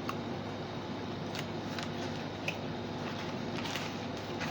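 Faint crunching of chocolate-coated crispy snack sticks being chewed: a few soft, scattered crackles over a steady hiss.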